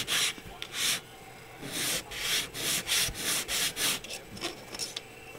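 A plastic model-kit wall piece rubbed back and forth on a flat sheet of sandpaper: short rasping sanding strokes, roughly two a second, with a pause of about a second near the start and fewer strokes near the end.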